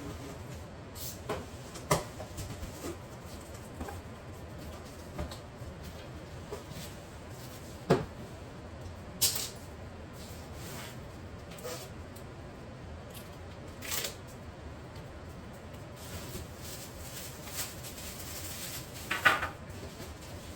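Scattered sharp clicks and knocks, as of objects being handled and set down, over a steady background noise; the loudest knocks come about eight seconds in and near the end.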